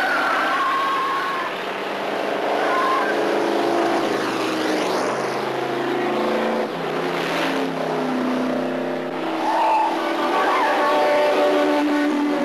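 Cars racing at high speed, engines revving hard, with tires squealing.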